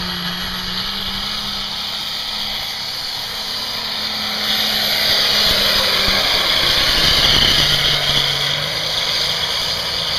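Allis-Chalmers D21 pulling tractor's diesel engine running flat out under full load as it drags a pulling sled down the track. The sound grows louder from about halfway through.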